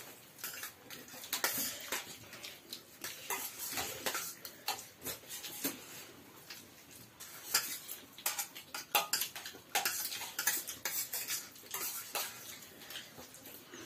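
Dishes and utensils clinking and scraping at irregular intervals as a meal is eaten.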